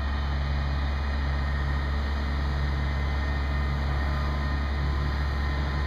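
A mobile crane's diesel engine running steadily, a constant low drone.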